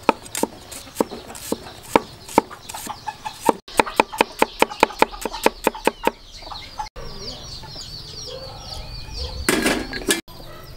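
A steel cleaver chopping shallots on a round wooden chopping block: sharp knocks, spaced out at first, then quick and even, about five a second, from roughly three and a half seconds in. After they stop, chickens chirp in the background, with a brief rustling noise near the end.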